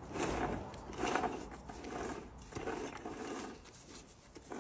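Renault JR5 gearbox with a gear engaged, making a rough grinding rumble in repeated bursts a little more than once a second, fading near the end. This is the noise the mechanic attributes to a worn differential bearing, the gear oil having come out metallic.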